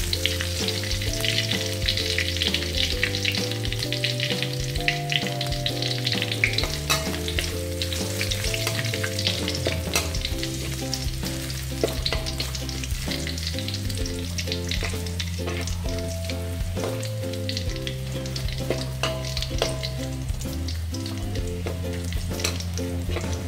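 Chopped garlic sizzling and crackling in hot oil in a wok while it is stirred with a spatula.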